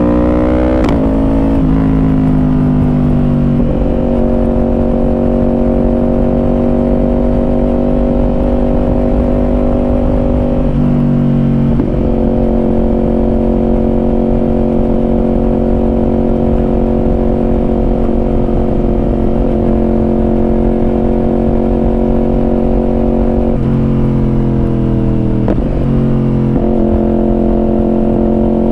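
Yamaha R1 inline-four sportbike with a Yoshimura exhaust, heard from on board while riding. It revs up and shifts about a second in, then cruises at a steady engine speed for long stretches, with further changes in engine speed around a third of the way in and again near the end.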